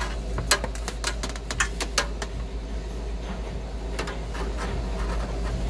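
Hand torch brazing a copper refrigerant line on a freezer evaporator coil: a steady hiss with sharp clicks and crackles, most of them from about half a second to two seconds in and one more near four seconds. A steady mechanical hum runs underneath.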